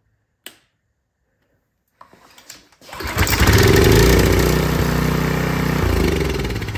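A click, then the Briggs & Stratton 190cc OHV engine of a pressure washer starts up about three seconds in and runs loudly for about three seconds. It is then shut off and runs down, its automatic choke no longer stuck closed.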